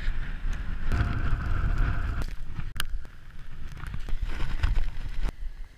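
Wind rushing over a GoPro microphone while snowboarding, with the hiss and scrape of the board sliding over snow, stronger for the first two seconds and then easing off.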